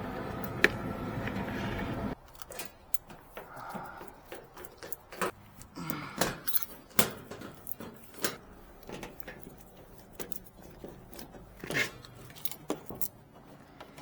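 A steady hum for about two seconds that cuts off suddenly, then scattered metallic clinks, clicks and knocks from objects being handled.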